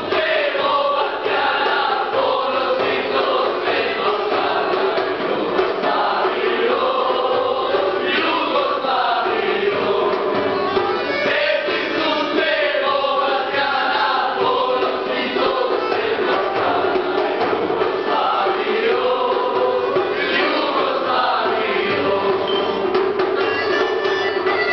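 A group of men singing together in chorus, many voices at once without a pause.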